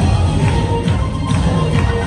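Loud dance music with a heavy, steady beat and regular percussion hits.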